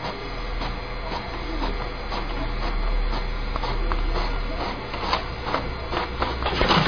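A small machine running with a steady low hum and a regular mechanical clicking, about two clicks a second, which grows louder and busier near the end.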